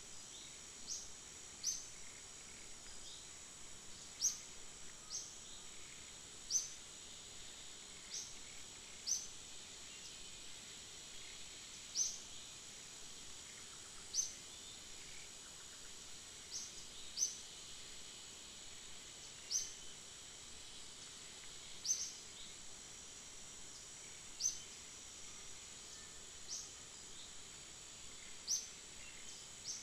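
Outdoor woodland ambience: a steady high-pitched insect drone, with a bird giving short rising chirps every second or two.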